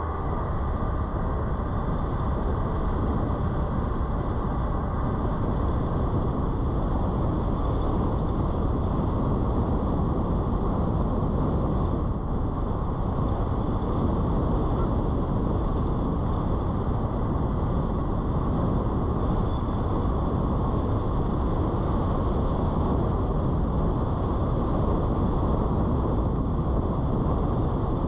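Steady road noise of a car cruising at city speed: tyres on asphalt and a constant rush of wind, even in level throughout.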